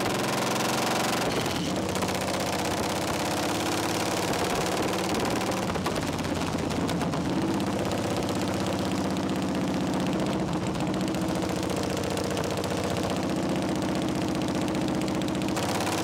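Harley-Davidson Shovelhead air-cooled 45-degree V-twin on a chopper, running under way at a steady road speed. Its exhaust is a rapid, even staccato of firing pulses.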